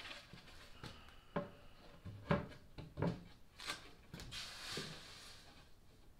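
A plywood panel knocking against a plywood console as it is set in place for a test fit: about five sharp wooden knocks, then a short sliding rub near the end.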